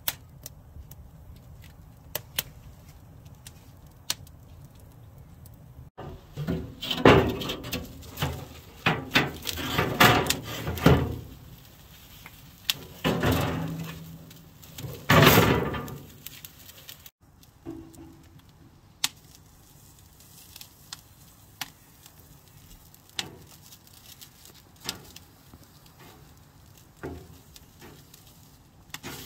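Wood fire crackling with scattered sharp pops. From about six seconds in, a steel mesh cooking grate is scraped and rattled into place on a metal barrel grill, in several loud stretches that are the loudest part. Then it goes back to quiet crackling with a few light knocks as vegetables are set on the grate.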